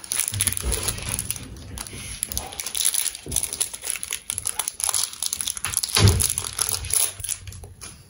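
Plastic snack wrapper crinkling and rustling as it is handled, with a few soft knocks and a louder rustle about six seconds in.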